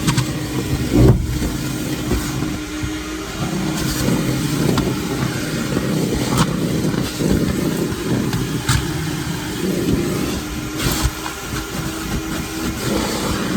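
Vacuum cleaner running with a steady motor hum, with several sharp knocks and clatters scattered through.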